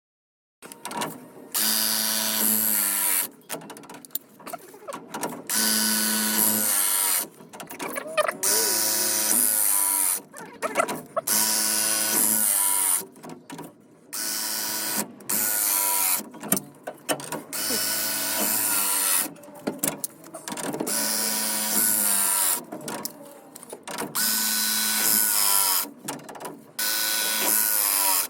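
Electric press tool's motor running in repeated bursts of a second or two, with short gaps between, as copper ProPress fittings are crimped.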